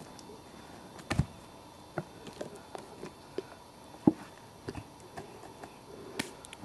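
Scattered clicks, knocks and crackles of movement on a dry forest floor, the loudest about a second in and about four seconds in.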